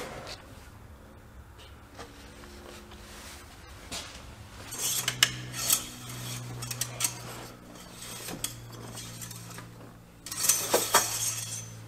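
Metallic clinks and rattles from a transmission fill funnel and dipstick being handled in a truck's engine bay, in two bursts: about five seconds in and again near the end. A low steady hum sits underneath from about five seconds on.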